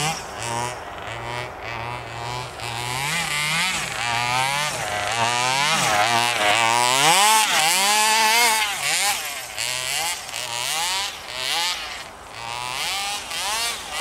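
27cc two-stroke gas engine of an RC truck revving up and down as it drives through deep snow, its pitch rising and falling again and again with the throttle; it is loudest a little past the middle.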